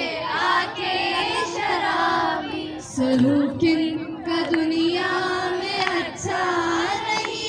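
A girl or young woman singing into a microphone, her voice carried over a sound system, with long held notes.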